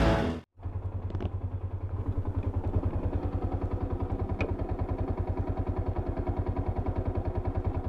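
Yamaha Sniper 150 motorcycle engine idling steadily, with an even, quick pulse.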